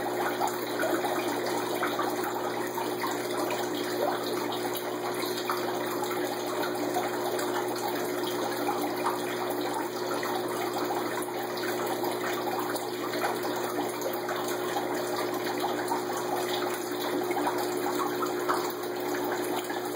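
Air-driven aquarium sponge filters bubbling: a continuous crackling burble of air rising through water in their lift tubes, over a steady hum.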